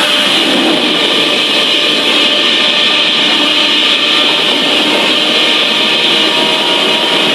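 Godzilla sound effect from the 2014 film: a loud, steady, noisy rush with a strong hiss, held evenly without changes in pitch.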